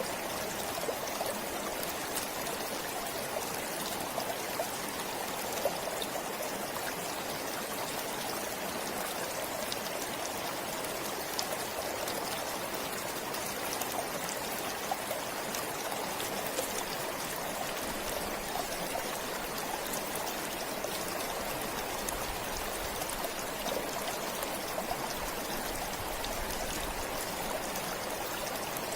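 Forest stream flowing steadily, water trickling and splashing over stones with a constant rushing hiss and small scattered drips.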